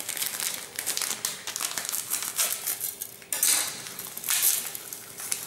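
Fine salt pouring from a cardboard carton into a plastic bowl: a hissing patter of grains on plastic that breaks off about three seconds in and then starts again.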